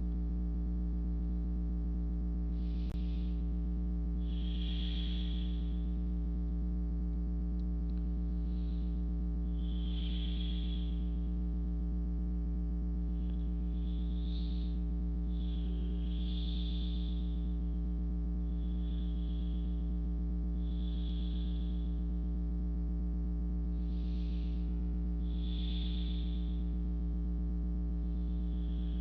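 Slow, soft breathing close to the microphone, an in-breath and an out-breath about every five seconds, the breathing of someone falling asleep, over a steady low electrical hum.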